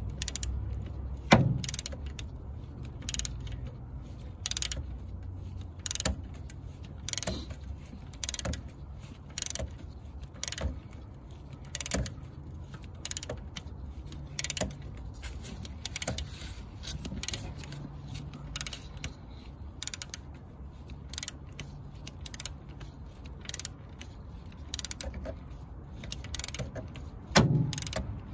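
Hand ratchet being worked back and forth on a corroded engine bolt, its pawl clicking in a short burst on each return stroke, about once a second.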